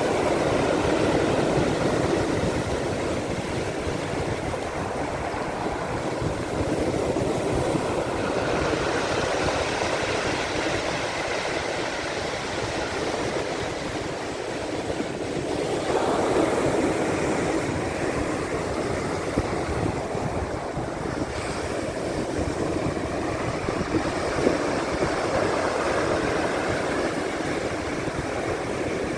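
Black Sea surf washing onto the shore, a continuous rush of waves that swells louder near the start, about halfway through, and again later.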